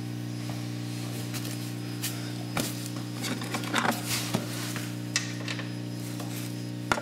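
Light clicks and rustling of a gloved hand handling the car's underbody near the oil filter and drain bolt, over a steady low hum.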